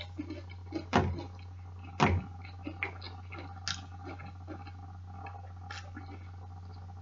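Close-up chewing of food, with small wet mouth clicks, and two sharp knocks about a second and two seconds in. A steady low hum runs underneath.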